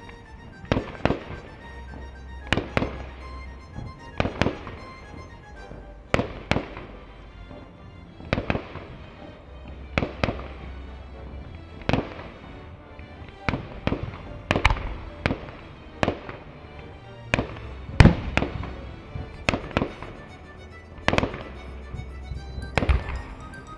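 Aerial fireworks shells bursting in a steady series, about one sharp bang a second, each followed by a short echoing tail.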